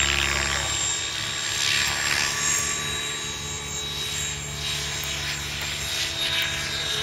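Mikado Logo 600 SE electric radio-controlled helicopter in flight: a steady high motor whine under the rush of its rotor blades, which swells and fades about every two seconds as it moves about.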